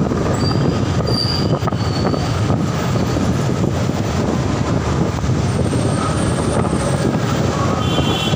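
Steady road noise of a motorcycle riding in city traffic, with the engine and wind on the microphone. A few brief high-pitched squeals cut through early and again near the end.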